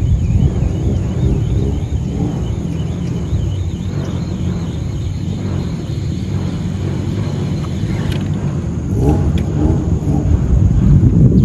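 Wind buffeting the microphone outdoors: a loud, steady low rumble. Faint voices come in near the end.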